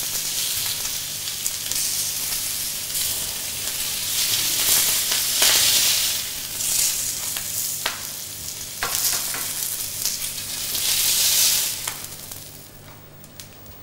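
Hot grilled salmon steaks sizzling as they are laid with a metal spatula into a stainless steel roasting tray, the hiss swelling and easing, with a few sharp clinks of the spatula against the tray. The sizzle dies down near the end.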